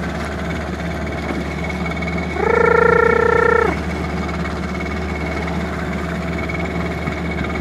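Small fishing boat's engine running steadily, with a person's long, drawn-out shouted call of about a second about two and a half seconds in.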